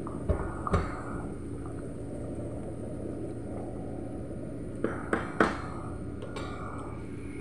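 Chicken broth bubbling at a boil in a metal pot, with a wooden spatula stirring and knocking against the pot: two knocks near the start and three more about five seconds in.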